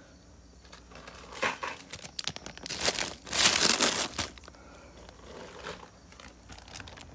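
Bags crinkling and rustling as they are handled, in several bursts, the loudest about three to four seconds in.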